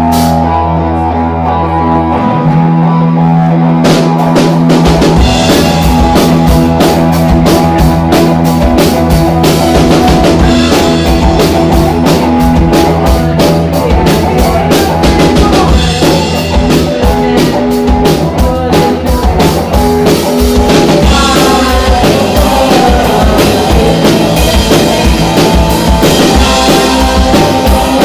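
Live punk rock band playing loudly: electric guitar and bass hold a chord, then the drum kit comes in about two seconds in, with cymbals joining a couple of seconds later, and the full band drives on at a steady fast beat.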